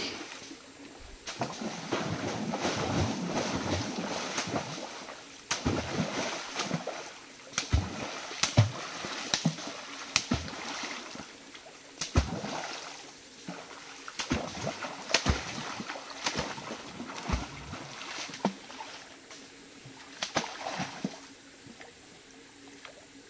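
Water splashing and sloshing in a shallow stream as people wade through it chasing fish, with irregular sharp slaps on the water surface. The splashing dies away near the end.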